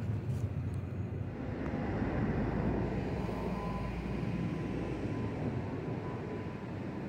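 Twin-engine narrow-body jet airliner climbing overhead: a steady jet engine rumble that grows a little louder about two seconds in, with a faint thin whine on top.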